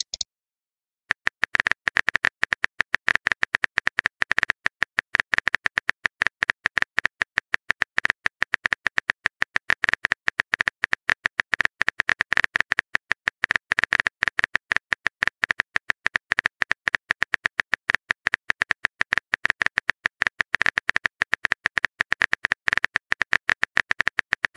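Rapid simulated keyboard typing clicks from a texting-story app, many short identical ticks a second as a message is typed, starting about a second in.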